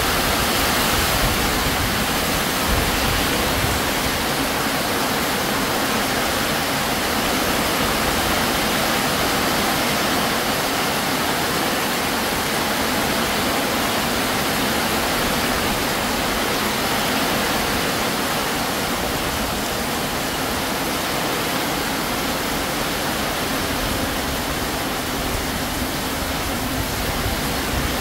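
Heavy tropical downpour: a loud, steady rush of rain heard from under a corrugated metal roof, with water streaming off its edges.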